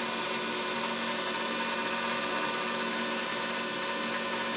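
Metal lathe running steadily, its chuck turning an aluminium workpiece as the tool takes a light final finishing pass: an even machine hum with several steady tones over a hiss.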